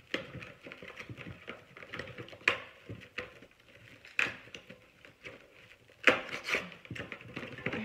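Multipack of canned sparkling water being torn open and handled: rustling, tearing and clicking, with a few sharp knocks, the loudest about six seconds in.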